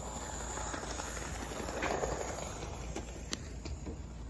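Battery-powered toy train running along its plastic track, the motor whirring and the wheels rattling on the rails, getting louder as it passes close about two seconds in. A couple of sharp clicks follow a little after three seconds.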